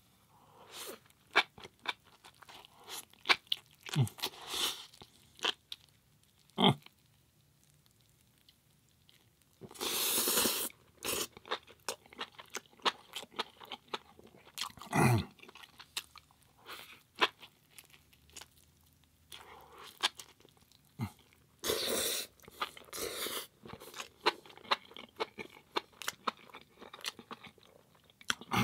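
Close-miked chewing of a Beyond burger topped with enoki mushrooms: wet mouth clicks and smacks, with louder crunching bites about ten seconds in, near the middle, and again a little later.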